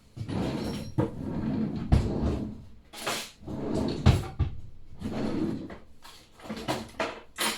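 Rummaging and handling noises while something is fetched: rustling and scraping with several knocks and thumps, the loudest about two and four seconds in.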